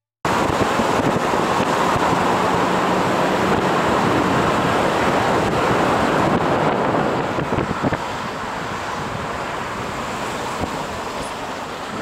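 Wind buffeting an outside car-mounted camera's microphone, mixed with tyre and road noise from the moving car. It cuts in abruptly and eases off a little about two-thirds of the way through as the car slows.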